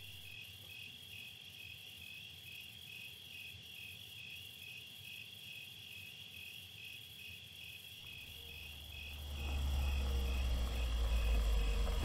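Crickets chirping steadily in a pulsing chorus. About eight seconds in, a car engine's low rumble rises and grows louder as it approaches.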